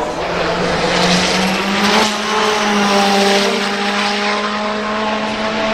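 Toyota Celica T200 Pikes Peak car's turbocharged 2.1-litre TRD four-cylinder engine under hard acceleration. It rises in pitch over the first couple of seconds, then settles into a steadier, slightly falling drone as the car pulls away.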